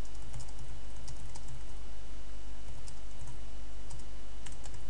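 Typing on a computer keyboard: irregular, uneven keystrokes over a steady low electrical hum.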